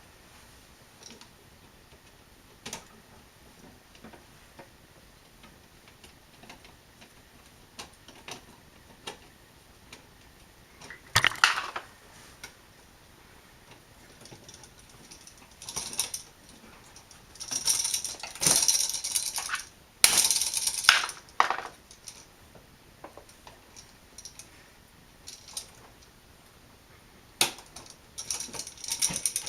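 Screwdriver and small metal parts of an electrical outlet clicking and clattering as it is unscrewed: scattered light clicks, with louder clattering about 11 seconds in and again from about 16 to 21 seconds in.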